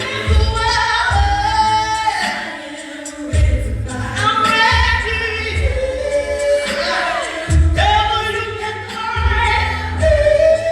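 Live gospel music: voices singing long held notes with vibrato over a band, with a deep bass note falling on the beat.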